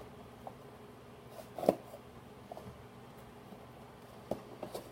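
A shipping box being opened and handled: a few faint rustles and taps, with one sharper click about a second and a half in and a short flurry of small knocks near the end.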